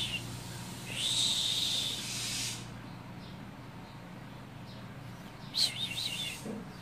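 High-pitched warbling chirps of an unseen animal: a run of calls about a second in lasting a second and a half, and a shorter group near the end.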